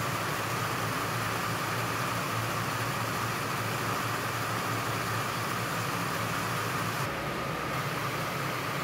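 Circular looms running, weaving polypropylene tubular fabric for woven sacks: a steady, even mechanical noise with a constant whirring tone over a low hum.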